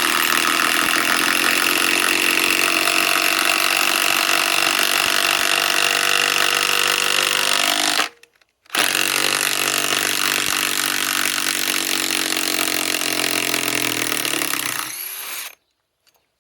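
DeWalt DCF891 mid-torque cordless impact wrench running hard, driving a fastener, in two long runs of about eight and seven seconds with a short stop between. The second run winds down and stops before the end.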